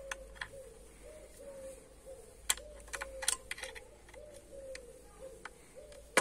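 A bird in the background repeating short low cooing notes, two or three a second, over light clicks and taps of tools and parts being handled; a cluster of sharper clicks comes about two and a half to three and a half seconds in.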